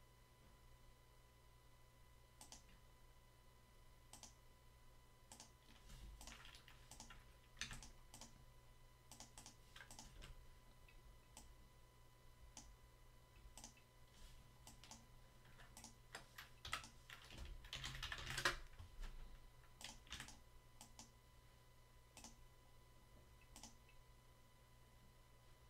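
Faint, scattered clicks and keystrokes from a computer keyboard and mouse, with busier flurries about six seconds in and again around seventeen to eighteen seconds, over a faint steady electrical hum.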